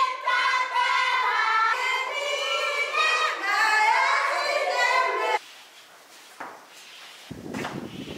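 A group of young children singing together, cutting off abruptly about five seconds in; fainter, noisier room sound follows.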